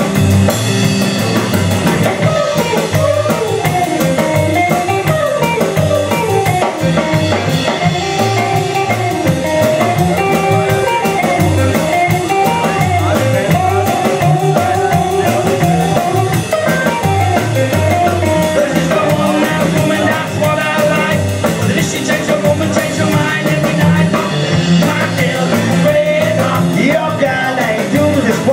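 Rockabilly band playing live through an instrumental break: electric guitar leading over a steady drum beat and a walking bass line.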